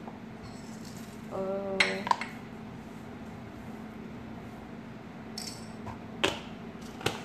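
A few sharp clinks of a small coffee cup and utensils against kitchenware while coffee ingredients are measured into a pot, a pair about two seconds in and two more near the end, over a faint steady low hum.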